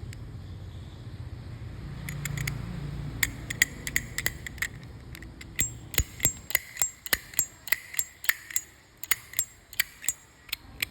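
A Zippo lighter being worked in the hand: a run of sharp metallic clicks with a ringing tone. They start a couple of seconds in and come about two or three a second from the middle on, over a low rumble in the first seconds.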